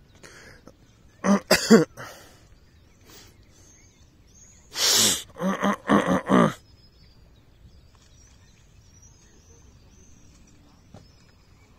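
Two clusters of short, loud vocal sounds: a few quick ones about a second and a half in, then a noisy burst followed by four or five short pitched calls from about five seconds in. Faint bird chirps between them.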